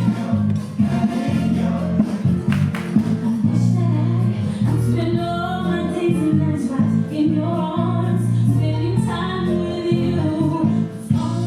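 Background music with voices singing, choir-like, over sustained low chords.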